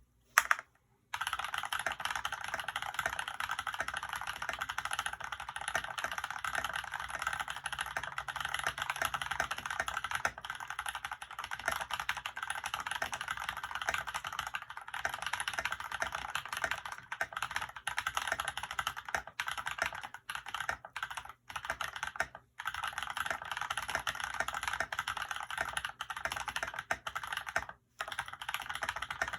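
Fast continuous typing on a custom mechanical keyboard with tactile Holy Panda switches in a steel plate, PBT keycaps and foam dampening: a dense run of clacky key strokes, broken by a few short pauses.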